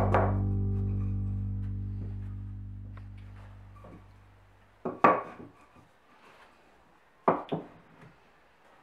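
The last chord of background music rings out and fades away over about four and a half seconds. Then a solid pine beam is knocked down onto a wooden workbench, once about five seconds in and twice more in quick succession about two seconds later.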